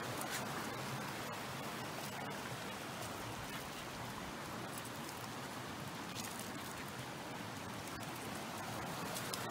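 Mountain stream running: a steady rush of water.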